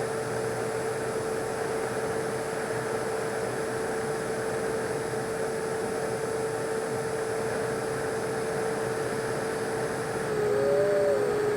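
Electric ducted fan of a 64mm EDF jet whining at a steady pitch over a hiss of air noise. About ten seconds in a second, higher whine joins it, swinging up and down before holding, and the sound grows louder.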